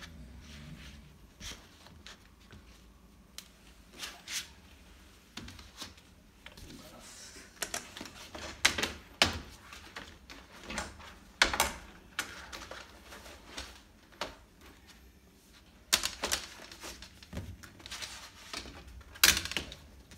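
Flat panels of a stackable cube organiser being handled and lifted out of their plastic wrapping: rustling of the plastic with irregular clacks and knocks of the panels against each other, the sharpest few in the second half.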